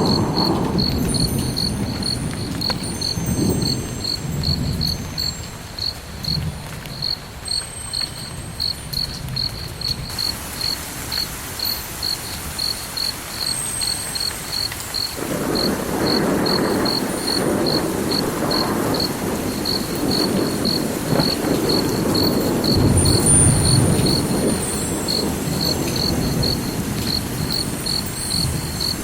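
A cricket chirping steadily, a high-pitched pulse about twice a second, over a low rumble like distant thunder that grows louder about halfway through.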